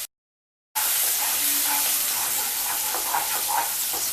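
Chopped onion, green chilli and garlic sizzling as they fry in hot oil in a pan, with a few light knocks of the stirring spoon. The sizzle starts suddenly after a short dead silence.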